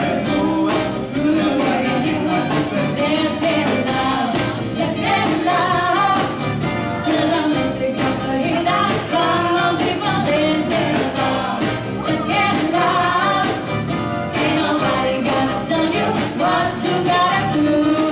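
Live band playing with a singer over a steady beat.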